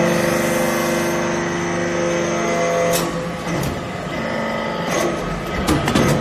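Hydraulic metal shaving baler running: a steady hum with several held tones from its pump and motor, which drops away about three seconds in. Sharp metallic knocks follow a few times.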